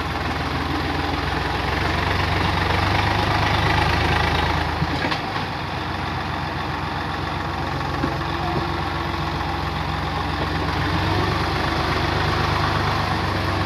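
Swaraj 855 FE tractor's three-cylinder diesel engine running steadily under load while it pulls a rotavator through the wet, muddy field, swelling a little twice.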